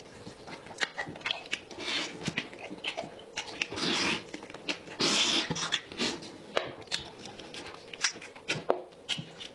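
Close-miked eating: wet chewing, lip smacks and gnawing as meat is pulled off goat rib bones by hand and mouth, with many short sharp clicks. Longer sucking noises come about four and five seconds in.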